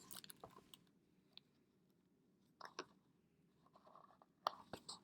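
Near silence with a few faint clicks and a soft rustle of a paper picture book being handled, its pages turned; the sharpest click comes near the end.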